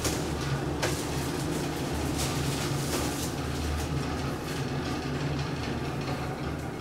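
Steady low hum and rumble inside a traction elevator cab, with a few light clicks and rattles near the start.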